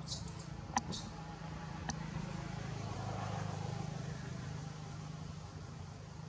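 Low, steady engine-like hum that swells and fades around the middle, with two sharp clicks in the first two seconds and a few short high-pitched chirps near the start.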